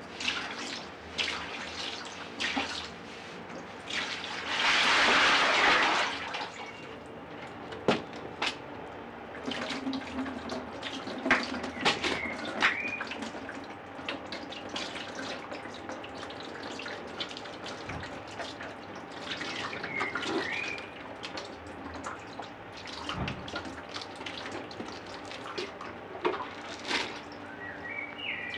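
Liquid glaze poured from a plastic bowl over a large bisque-fired moon jar, with a loud pouring rush about four to six seconds in, then scattered drips and trickles as the glaze runs off into the bucket beneath.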